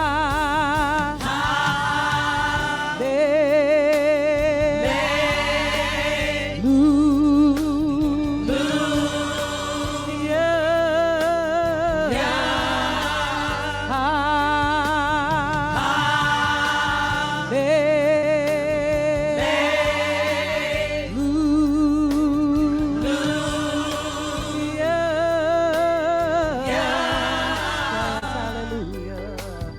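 Gospel choir singing long, held notes with heavy vibrato in repeating phrases of about two seconds, over steady instrumental accompaniment.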